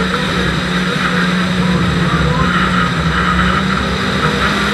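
Renault Clio RS rally car's engine running hard at steady revs, heard from inside the cabin.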